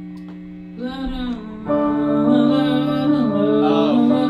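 The band playing: a chord held steady, with a voice singing over it from about a second in. The music gets fuller and louder just before two seconds in.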